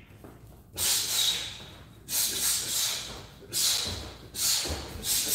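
Five sharp hissing exhalations, about a second apart: a fighter breathing out through the teeth with each punch or kick while shadowboxing. Faint soft thuds of bare feet on the training mat come near the end.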